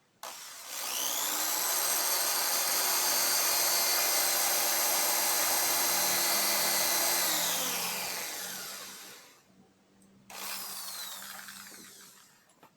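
Heavy-duty 13 mm electric hand drill spinning a 7-inch circular saw blade: it whines up to speed, runs steadily for about six seconds, then winds down. After a short pause it is triggered again briefly and coasts down.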